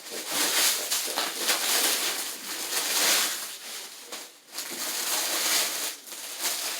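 Plastic packaging crinkling and rustling in handling as a doll is unwrapped, in uneven spells with short pauses.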